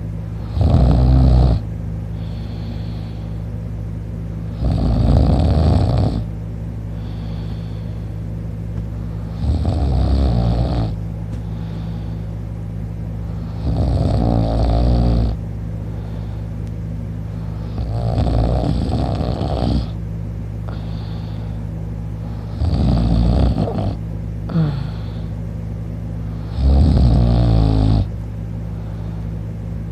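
A man snoring in deep sleep, on his back with his mouth open: seven rough snores, one about every four seconds, over a steady low hum.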